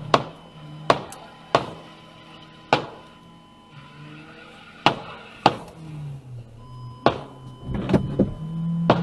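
Background music with a low, moving bass line, over a run of about ten sharp knocks at uneven spacing, two of them close together near the end.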